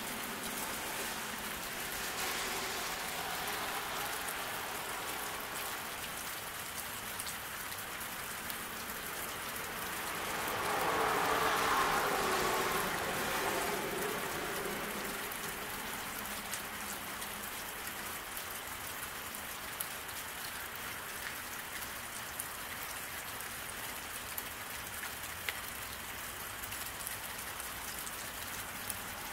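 Steady rain falling on a wet road, an even hiss with a few faint drip ticks. About ten seconds in, a car passes on the wet road: its tyre hiss swells and fades over a few seconds.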